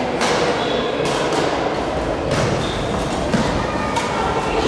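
Badminton rackets striking a shuttlecock: a few sharp hits at uneven intervals, over the steady echoing noise of a busy sports hall.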